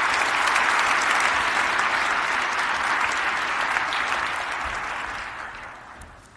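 Audience applauding, a dense steady clapping that fades away over the last second or so.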